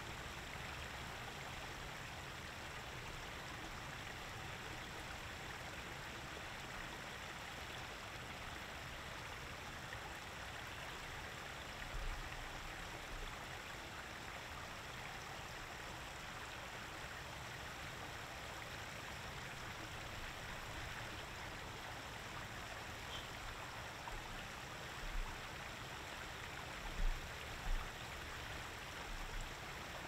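Shallow creek water spilling over a low rock ledge in small cascades, a steady flowing sound. A low thump comes about halfway through, and several more come near the end.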